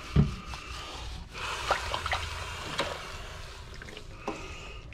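Water sloshing and dripping in a stainless-steel kitchen sink as a wet miniature schnauzer is rubbed down by hand, with a dull thump just after the start and scattered small splashes and ticks.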